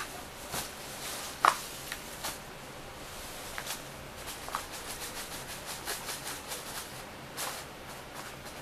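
Irregular rustling and crinkling of a homemade pink streamer jellyfish toy as a cat bats and tugs at it, with one sharper crackle about one and a half seconds in.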